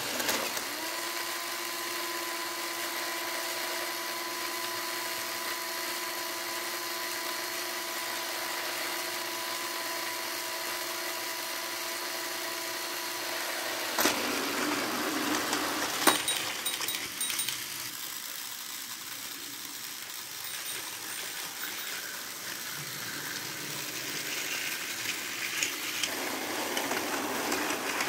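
Tomy Trackmaster Diesel 10 battery-operated toy train running on plastic track, its small electric motor and gearbox giving a steady whine. About halfway through the whine stops and a rougher rattle follows, with a couple of sharp clicks.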